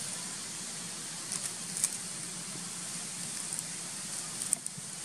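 Steady outdoor background hiss over a faint low hum, with a few small scattered clicks and crackles.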